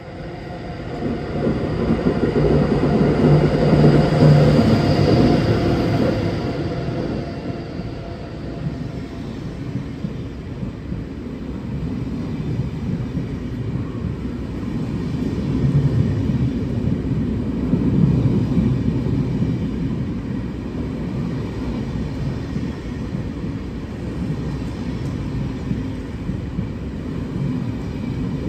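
Electric locomotive hauling a train of SBB passenger coaches rolling past close by. It is loudest as the locomotive goes by a few seconds in, with a steady tone over the rumble, then comes the steady rumble of the coaches' wheels on the rails.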